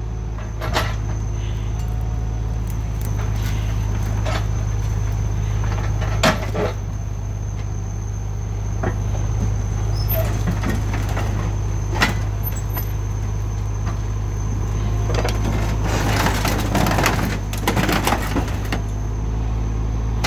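Kubota tractor's diesel engine running steadily as its backhoe bucket shoves a heavy steel crawler winch onto a loaded trailer. There are a few sharp metal knocks, then a stretch of scraping and crunching near the end as the winch is pushed into place.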